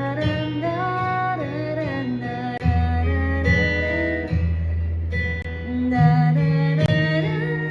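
A woman singing to a strummed smart-guitar chord accompaniment, the chords changing about three times.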